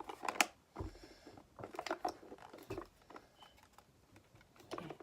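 Light handling noises: scattered small clicks, taps and rustles of plastic toy volcano kit parts being set in place and fitted together.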